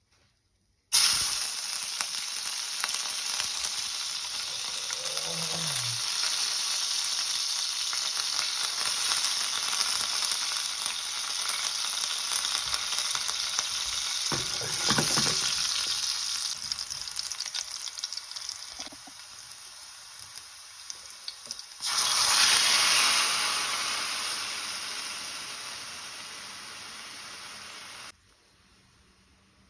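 Chopped garlic and green chillies sizzling in hot oil in a stainless steel frying pan. The sizzle starts suddenly about a second in and slowly fades. About 22 seconds in it jumps louder again as liquid goes into the pan, then it cuts off abruptly near the end.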